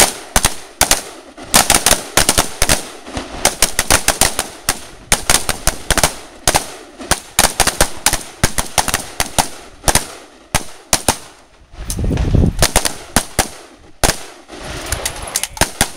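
Several AR-15 rifles firing at the same time: a rapid, irregular string of overlapping shots, several a second, with no real pause.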